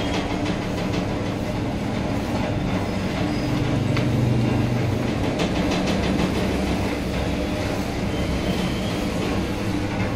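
Electric areca nut (supari) cutting machine running steadily: a constant motor hum with a light, irregular clatter over it.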